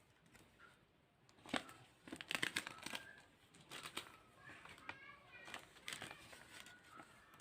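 Packaging being handled: crinkling and rustling with small clicks, in two clusters and loudest a little after two seconds in.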